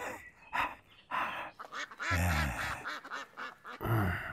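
A man drinking from a cup, with sips and slurps, then two short throaty vocal noises without words: one about two seconds in and a shorter one near the end.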